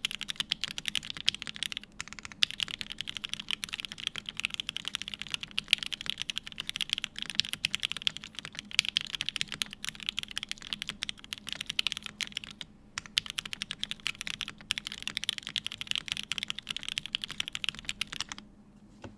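Continuous typing on a TGR 910ce mechanical keyboard with a polycarbonate plate, H1 switches lubed with Krytox 205g0 and filmed, and GMK keycaps. There are a few short breaks, and the typing stops about a second before the end.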